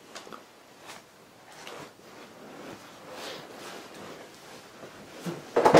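Soft rustling of clothing and light handling noises as two people move and embrace close to the camera, ending in a sudden loud rustle against the microphone.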